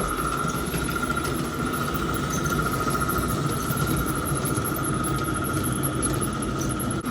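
G-scale garden railway train of two double-headed live steam locomotives running, with a steady high-pitched squeal over a low rumble.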